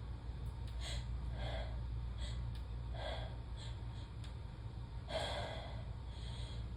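A woman's short gasping and sniffing breaths, about seven in a string with the loudest about five seconds in, her reaction to Chhinkni sneezing powder irritating her nose. A steady low hum runs underneath.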